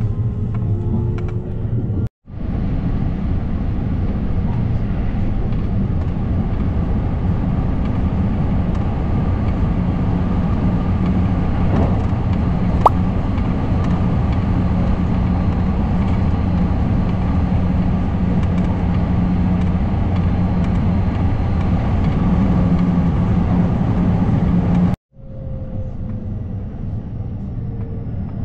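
Electric passenger train running at speed, heard from inside the carriage: a steady, loud low rumble with one sharp click partway through. After a cut near the end the running noise is quieter, with a faint falling whine.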